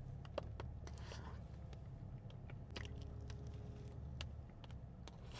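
Faint chewing and small wet mouth clicks from eating a strawberries-and-cream cookie, over a low steady background hum.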